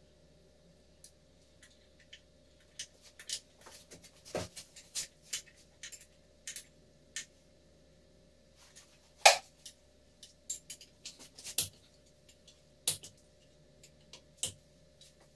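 Irregular metallic clinks and clanks of hand tools and loose parts on a Terex 860 backhoe loader's gearbox housing as it is taken apart, with one louder clank about nine seconds in.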